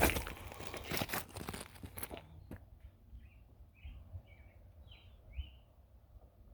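Rustling and knocking noise for the first two seconds, then a bird calling a series of about six short, falling chirps.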